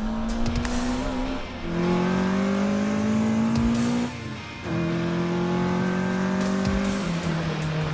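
Car engine accelerating hard through the gears: its pitch climbs steadily, then drops at an upshift about one and a half seconds in, again a little after four seconds, and once more near the end.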